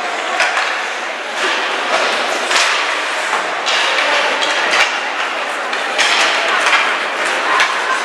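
Ice hockey game in an arena: a din of spectators' and players' voices and shouts, cut through by repeated sharp knocks and thuds of sticks, puck and boards.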